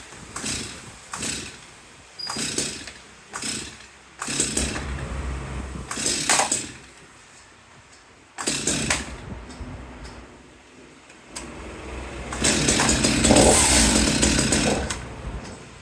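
STIHL MS 250 two-stroke chainsaw being pull-started: a string of short cord pulls, then the engine catches and runs for a couple of seconds before dying. After another short burst it fires again, runs loudest for a few seconds near the end, then falls away.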